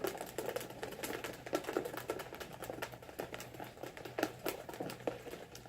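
Light, irregular clicking and rustling as paper raffle tickets are stirred and drawn from a container.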